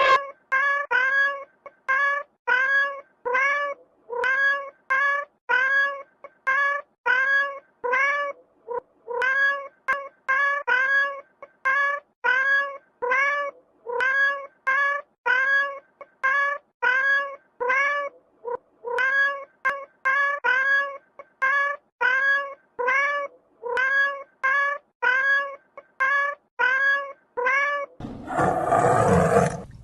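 Cat meowing over and over in short, rising mews, about two a second. Near the end a loud, rough noise cuts in.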